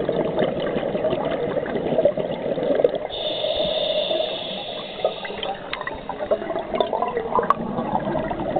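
Scuba breathing underwater: a diver's regulator and rushing, gurgling exhaust bubbles, with a higher hiss from about three seconds in until nearly six, then scattered crackling bubbles.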